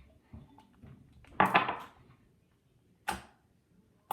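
Hands squishing and handling slime: a loud burst of noise about a second and a half in, and two shorter ones later.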